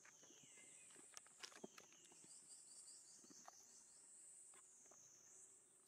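Faint, steady high-pitched insect drone that slowly wavers in pitch, with scattered soft clicks and rustles.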